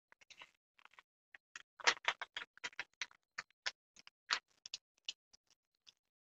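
Brown kraft-paper pattern crackling as it is folded over and pressed flat by hand: an irregular run of sharp crackles and clicks, thickest about two seconds in.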